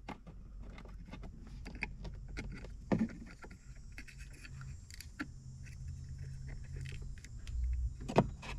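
Small plastic clicks and rattles as a Glowshift air-fuel ratio gauge's wire connector is plugged in and the gauge is pushed into a plastic pillar gauge pod. A low steady hum runs underneath.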